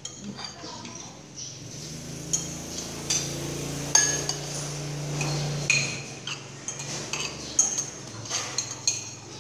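Metal spoons clinking and scraping against ceramic bowls as food is dished out, a dozen or so sharp clinks with a bright ring. A low steady hum runs underneath through the middle few seconds.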